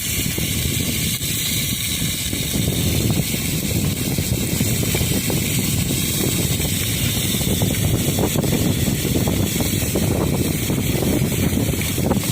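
Strong wind buffeting the microphone on a boat at sea, a steady rumbling rush with the wash of choppy water.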